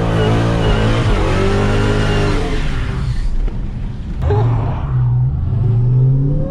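Supercharged 6.2-litre HEMI V8 of a Dodge Charger SRT Hellcat, heard from the driver's seat, pulling hard under throttle. It eases off about three seconds in, comes back on strongly, then rises in pitch again near the end as it accelerates.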